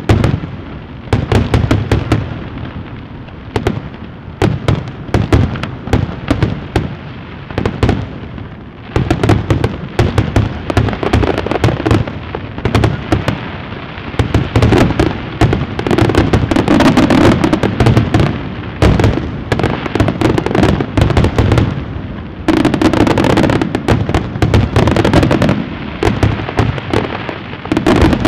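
Fireworks display: aerial shells bursting in rapid, overlapping bangs and crackles, with a brief lull before the bursts pick up again and grow densest in the second half.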